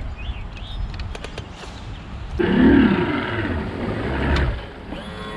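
Bass boat's outboard motor running at low speed with wind on the microphone, swelling much louder about halfway through and dropping off a second or so before the end; music begins right at the end.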